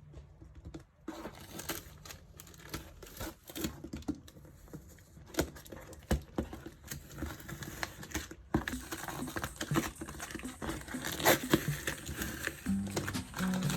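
Packaging being handled and torn open: crinkling wrap and tearing paper with many small taps and clicks, busier in the second half.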